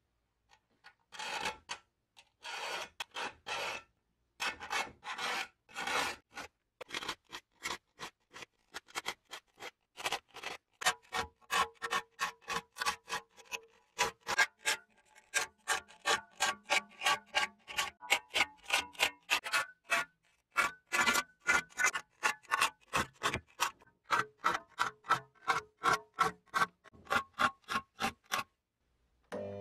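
Hand file strokes, at first a few slow strokes with short pauses, then a quick steady back-and-forth of about three strokes a second that stops shortly before the end, with a faint ringing tone under some strokes.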